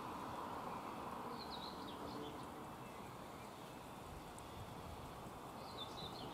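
A small songbird chirping in two short runs of quick high notes, about a second in and again near the end, over a steady outdoor background hiss.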